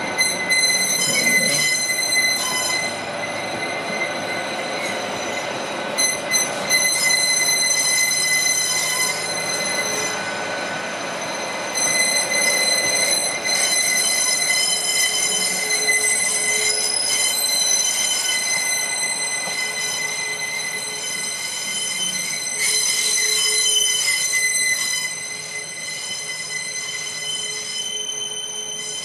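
Hitachi-built Class 810 bi-mode train rolling slowly along curved track, its wheels squealing in steady high-pitched tones over a low running rumble, easing a little near the end as it draws away.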